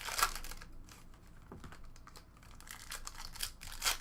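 Trading-card packs and cards being handled: a brief crinkle of foil pack wrapper at the start and again near the end, with a run of small quiet clicks and taps between them as cards are shuffled through.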